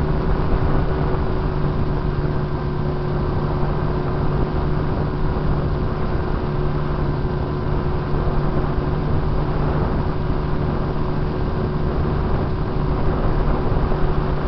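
RC airplane's motor and propeller running steadily at cruise, heard from a camera mounted on the plane, with a constant drone at an unchanging pitch under rushing airflow noise.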